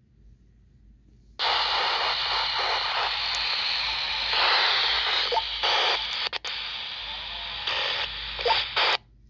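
Static hiss from an FRS walkie-talkie's speaker as its squelch opens, starting about a second and a half in. It runs for about seven and a half seconds with a couple of brief dropouts, then cuts off abruptly as the squelch closes.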